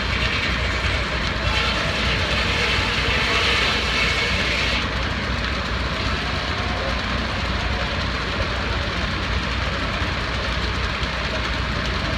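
Heavy machinery running steadily with a low rumble. A hiss rises over it about a second and a half in and stops a few seconds later.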